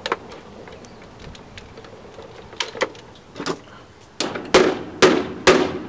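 Hammer blows on the plastic case of an APC backup power unit (UPS) being broken apart for scrap. A few light clicks from hand tools come first, then about five sharp hammer strikes, roughly two a second, in the last two seconds.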